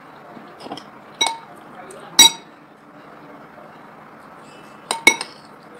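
Metal spoon clinking against a ceramic bowl, each strike ringing briefly: one about a second in, the loudest about two seconds in, and a quick double clink near the end.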